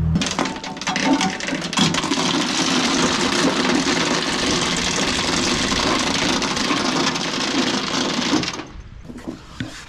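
A boat's anchor chain running out with a continuous clattering rattle for about eight and a half seconds, then stopping suddenly.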